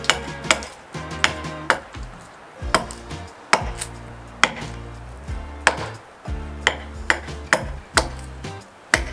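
Small carving axe chopping into a wooden knife-handle blank held upright on a chopping block, roughing out the handle shape: over a dozen sharp chops at an irregular pace, with background music underneath.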